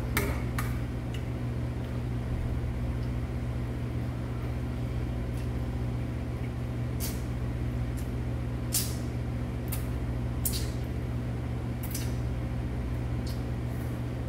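Steady low hum in the room, with short scattered eating noises, about eight in all, as noodles are slurped and metal chopsticks work in a metal bowl of cold noodles.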